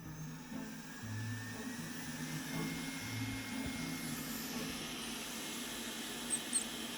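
Robot vacuum cleaner running, a steady motor noise, with low repeating bass notes of background music underneath.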